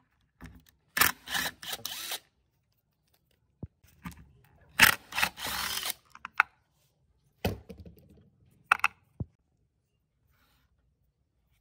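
Rusty socket-head bolts on a hoverboard's wheel-motor bracket being turned out with a hex key, the corroded threads grating in two bursts about a second long each. A few sharp knocks follow near the end as the loosened parts are handled.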